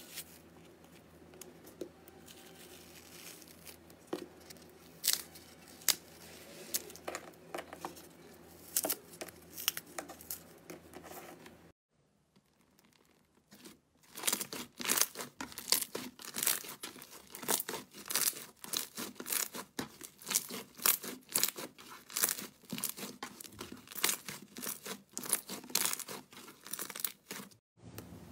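Hands tearing apart a cut block of textured slime, with scattered soft crackles. After a short pause, hands knead and press a glossy slime, giving many sharp clicks and pops in quick succession.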